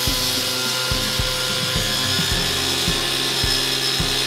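Petrol cut-off saw running flat out, its disc grinding through a plastic drainage channel and its steel grating with a steady, high-pitched hiss. A steady beat of background music runs underneath.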